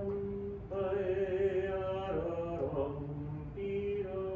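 Singing of a slow melody in long held notes. The first note breaks off just after the start, a new phrase begins under a second in, and the line steps down in pitch about two seconds in.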